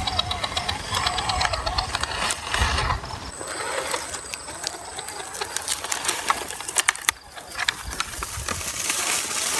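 Scale RC rock crawler's electric motor and gear drive whining, the pitch wavering with the throttle, then a run of sharp clicks and crackles from tyres and brush as the truck works through rocks and undergrowth.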